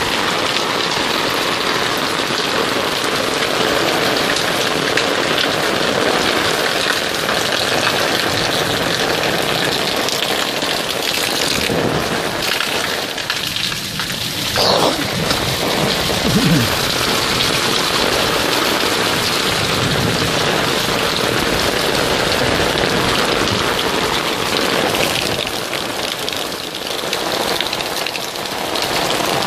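Torrential rain pouring steadily onto a paved lane and the surfaces around it, a dense, unbroken hiss of heavy rainfall.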